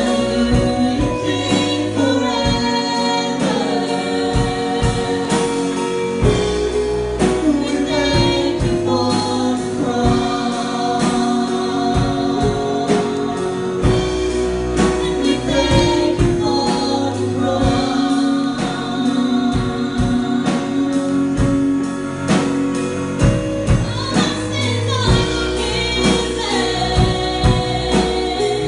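Christian worship song: voices singing together over a band with bass and a steady drum beat.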